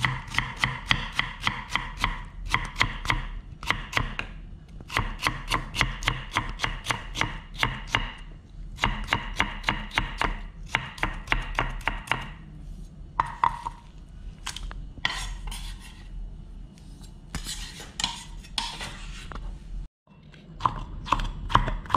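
A chef's knife rapidly julienning potato on a wooden chopping board: a fast, even run of sharp knocks, about five a second, each with a slight ring. About twelve seconds in the steady chopping stops and gives way to scattered knocks and scraping, and quicker cuts start again near the end.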